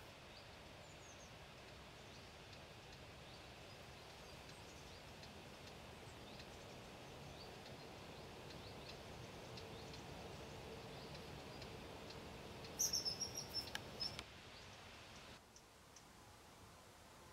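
Faint steady outdoor background noise. About three quarters of the way in, a common kingfisher gives a short rapid series of high, shrill calls, the loudest sound heard.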